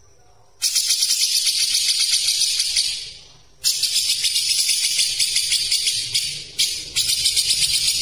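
Grey-cheeked bulbul (cucak jenggot) singing a fast, dense rattling chatter in three long bursts, the first starting about half a second in, with short breaks between them.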